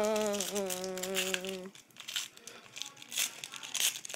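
A voice holds one long, level note for about a second and a half. Then comes irregular crinkling of a foil trading-card pack wrapper being handled and pulled open by hand.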